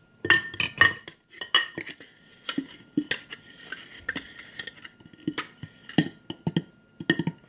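Metal measuring cup scooping vital wheat gluten flour, with a run of irregular clinks and taps of metal against its container.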